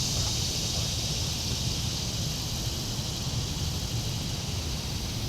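Steady outdoor ambience: an even, high insect hiss over a low rumble of wind on the microphone.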